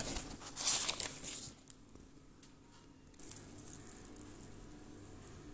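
Crinkly rustling of paper and a cardboard box being handled for about the first second and a half. After a short quiet gap, faint crisp crackling as a fried churros donut is broken apart by hand.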